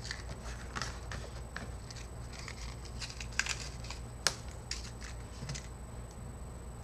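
Scattered small clicks and rustles, the sharpest two about three and a half and four seconds in, over a steady low hum.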